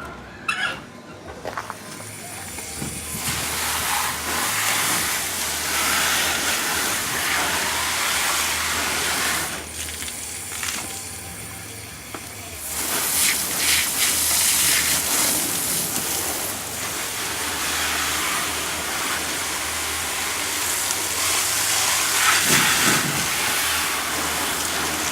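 Water spraying onto a plastic dirt-bike fender as the scrubbed-off oxidation and grime are rinsed away: a steady hiss that starts about two seconds in, eases off for a couple of seconds near the middle, comes back stronger and stops at the end.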